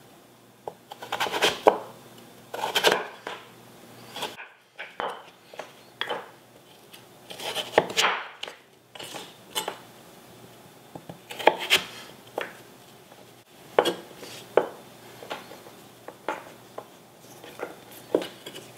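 Chef's knife slicing through raw butternut squash and knocking on a wooden cutting board, one cut at a time at an irregular pace. Some cuts draw out longer as the blade pushes through the dense flesh before it meets the board.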